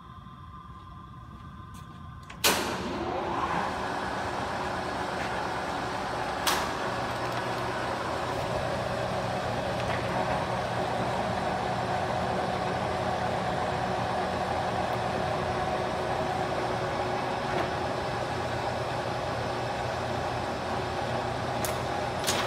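Kingston HRC24100 heavy-duty gap-bed engine lathe switched on with a sharp clunk about two and a half seconds in. Its motor and headstock gearing spin up and then run steadily with a mechanical hum. A second clunk comes a few seconds later, and a few clicks near the end.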